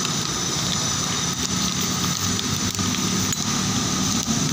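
An engine running steadily in the background, with a few light clicks scattered through.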